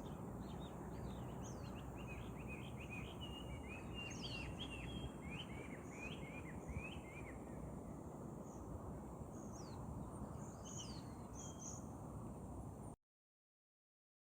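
Small birds chirping, a busy run of short calls through the first half and a few more later, over a steady rush of outdoor background noise; the sound cuts off abruptly near the end.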